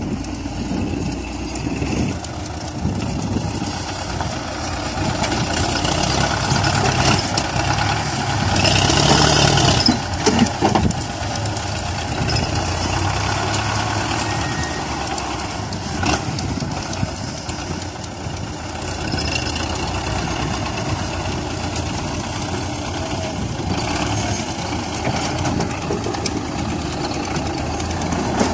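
Belarus MTZ-50 tractor's four-cylinder diesel engine running steadily while its front loader works. The engine grows louder for a couple of seconds near the middle, followed by a few sharp knocks.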